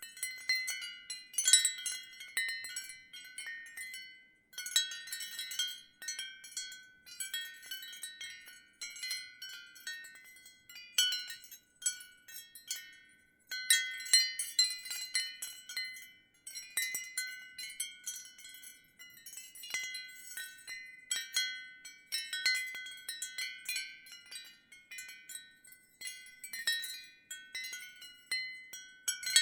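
Ceramic wind chimes clinking irregularly, high ringing tones in clusters with brief lulls between.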